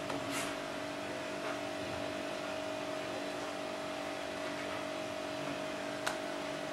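A steady faint background hum with a few fixed tones, like an appliance or electrical hum, with a soft sound near the start and a faint sharp tap about six seconds in.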